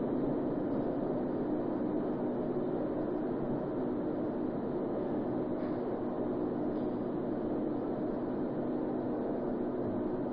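Steady mechanical drone of heavy workshop machinery, a low hum held on a few steady pitches without a break.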